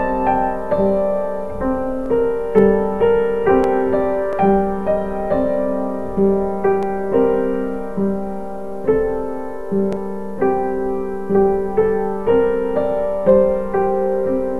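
Slow piano music: single struck notes and chords ringing out and fading one after another, roughly one or two a second.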